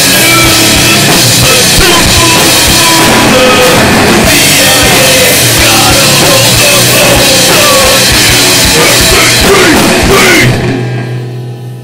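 Loud rock music with drums, fading out over the last second or so.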